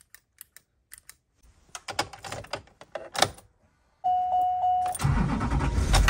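Light clicks and key rattles, then a steady dash warning tone, then at about five seconds the Chevrolet van-chassis short bus's engine cranks, catches and keeps running. It starts even with the emergency-exit door interlock switch open, the sign that the interlock circuit has been bypassed.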